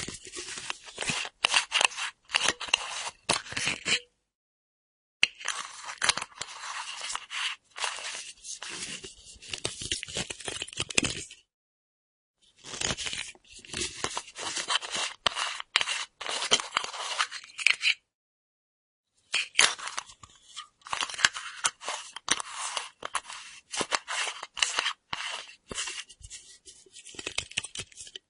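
Screw cap of a full metal flask being unscrewed and screwed back on: gritty scraping and clicking of the metal threads. It comes in four stretches with short silent gaps between them.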